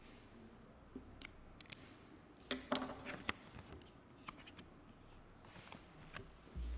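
Close-miked paper handling at a lectern: a pen scratching and the clicks and rustles of sheets being picked up and shuffled, loudest in a cluster about three seconds in, with a low thump near the end.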